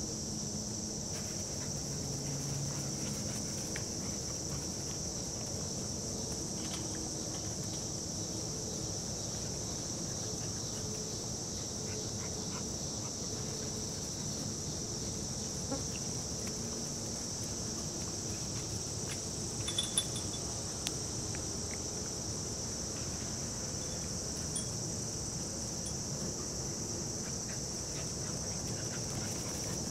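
Steady, high-pitched drone of insects in the summer grass, unbroken throughout, with a few faint clicks about two-thirds of the way through.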